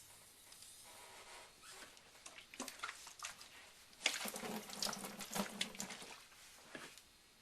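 Water splashing and running, with light knocks scattered through it; it is loudest for about two seconds past the middle.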